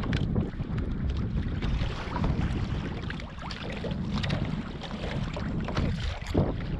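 Wind buffeting the microphone, with water slapping against a kayak hull and scattered small knocks and clicks.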